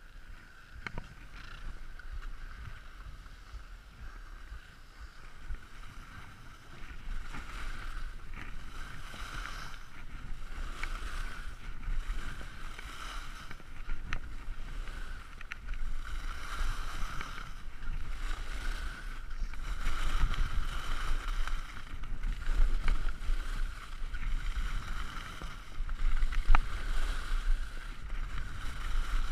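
Skis scraping and carving over hard-packed snow during a downhill run, mixed with wind rumbling on the microphone. The noise swells and fades every few seconds with the turns, grows louder after the first several seconds, and carries a few sharp clicks.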